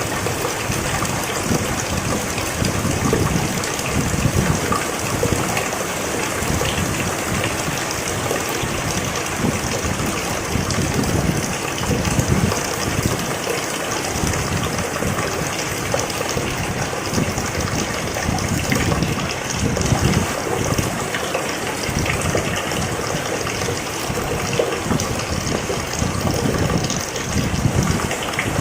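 Steady rain falling, with a continuous even hiss and irregular low surges.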